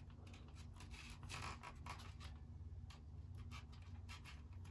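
Faint rustling and rubbing of a large paper sticker sheet being handled, its corner pulled to peel it, in short scratchy strokes.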